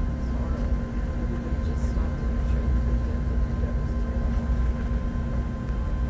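Inside a moving Amtrak Acela passenger car: the steady low rumble of the train running at speed, with a constant hum over it.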